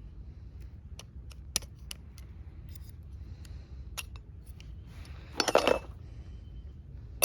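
Small clicks of hard plastic parts and packaging being handled. About five seconds in comes a brief clinking rattle of small hard pieces, such as screws or fittings shaken together.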